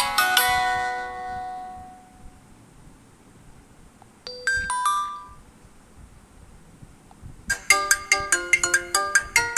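MIUI 12 phone tones played in turn. A ringtone melody of quick ringing notes dies away, a short chime of a few notes sounds about four and a half seconds in, and a new fast ringtone melody of quick ringing notes starts near the end.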